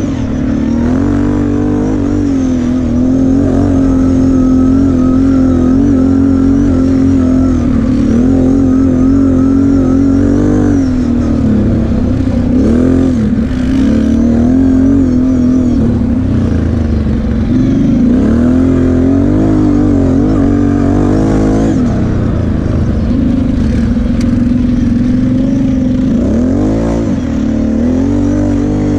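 The engine of a Kawasaki KFX sport quad running under steady throttle while it is ridden over sand, its pitch wavering. Several times the pitch dips and climbs again as the throttle is eased and reopened.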